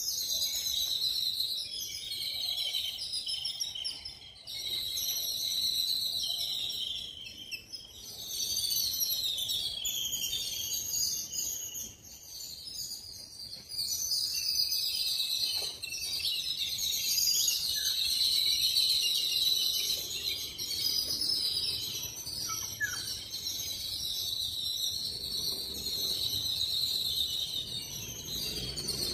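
Small birds chirping and calling in the surrounding trees, a continuous high-pitched chorus of twittering that swells and dips.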